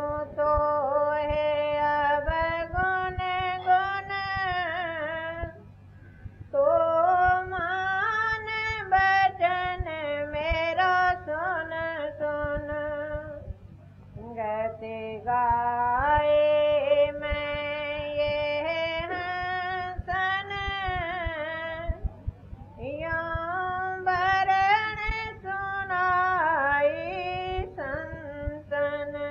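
A woman singing slowly in long held, gliding phrases, pausing briefly between phrases. A low hum and crackle sit underneath.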